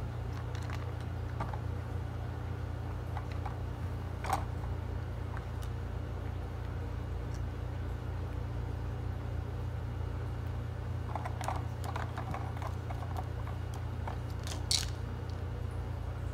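A Bengal cat crunching dry treats at a plastic treat-puzzle feeder, with scattered light clicks and taps of the plastic pegs and tubes and one sharper click near the end, over a steady low hum.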